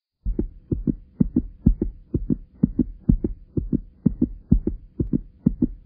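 Heartbeat sound effect: a steady double thump, about two beats a second, starting about a quarter second in, over a faint steady hum.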